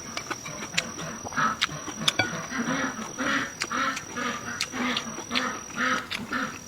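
A person eating with loud mouth sounds: chewing and lip-smacking in a quick even rhythm, about two or three a second, with sharp clicks in between. A steady high-pitched whine runs underneath and stops near the end.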